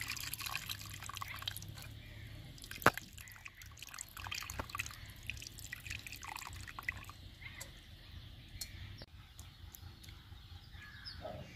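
Tamarind water poured by hand into a clay pot of fish curry, dribbling and splashing irregularly as it strains through the fingers, with one sharp click about three seconds in.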